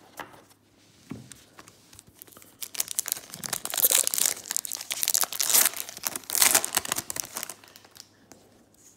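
Foil wrapper of a trading-card pack being torn open and crinkled. A dense crackling run starts about two and a half seconds in, is loudest twice through the middle and fades near the end.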